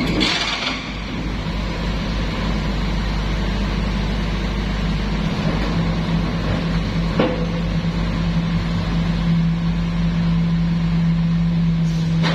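Diesel engine of a Sumitomo SH210 excavator running steadily under load. Its low drone grows stronger about seven seconds in, just after a single sharp clank.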